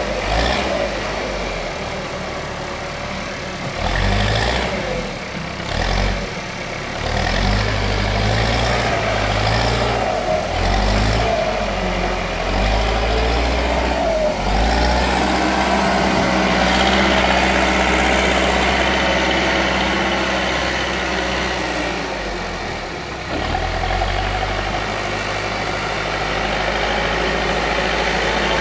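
Diesel engine of a JCB backhoe loader running under working load, its note rising and falling, with a few knocks in the first half. From about halfway it settles into a steadier, heavier run.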